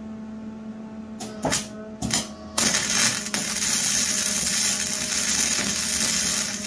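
Electric arc welding on a steel pipe. A couple of short arc spurts come first, then about two and a half seconds in the arc catches and runs as a loud, steady crackling hiss. A low, steady hum sits underneath.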